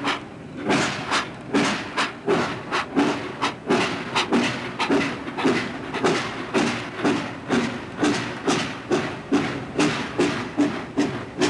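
Steam locomotive working in steady exhaust chuffs, about two to three a second, quickening slightly as the train gathers speed.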